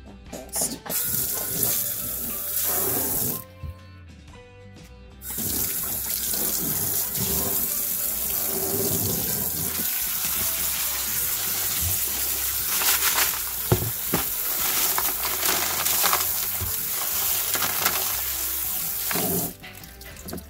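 Garden hose spray nozzle spraying water onto tumbled stones and ceramic tumbling media in a plastic sieve over a utility sink, rinsing off the coarse grit slurry. The spray runs for a couple of seconds, stops briefly, then runs steadily for about fourteen seconds and cuts off near the end.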